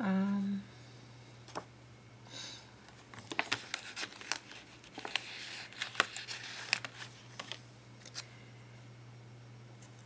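A paper sticker sheet rustling and crackling as it is flexed and small stickers are peeled off it by hand, in a run of short crackles over several seconds. A brief hum from a voice at the very start is the loudest sound.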